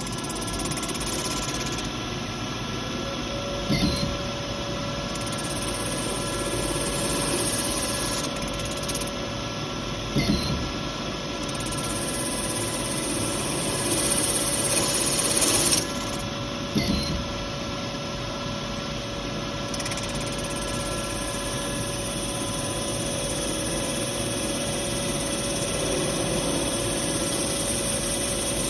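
Power tool running steadily with a constant whine, with brief louder bursts about four, ten and seventeen seconds in.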